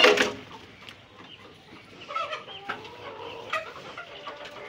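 Flock of chickens clucking and calling, with the loudest call in a brief outburst right at the start and scattered short clucks after.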